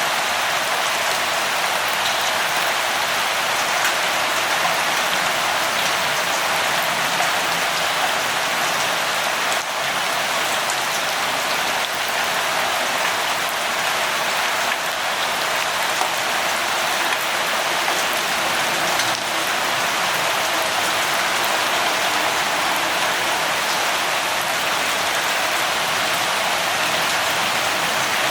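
Steady rain falling, an even hiss of many drops with faint scattered patters on a surface.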